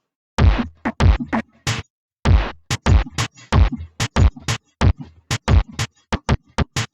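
Sampled drum kit in software, played from the Akai MPK mini's drum pads: kick and snare hits tapped out as a loose beat of quick, separate strokes with short pauses between groups.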